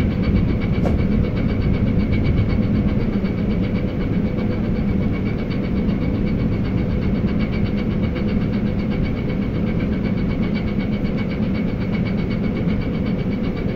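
Large engine or machinery running steadily: a low drone with a steady whine above it and a fast, even ticking.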